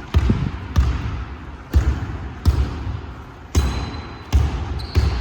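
Basketball being dribbled on a gym floor: about seven low bounces, roughly one every three-quarters of a second, each thud followed by a short echo.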